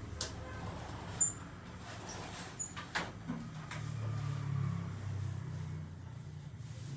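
Tattoo machine running with a low, uneven hum that swells about two-thirds of the way through, with a few sharp clicks.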